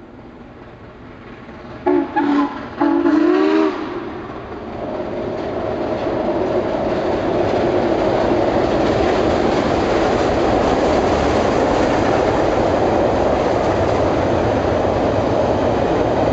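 Southern Pacific 4449 steam locomotive sounding its whistle in two short blasts and a longer third, then the train's rumble and wheel noise building as it comes onto the steel truss bridge and holding steady and loud through the second half.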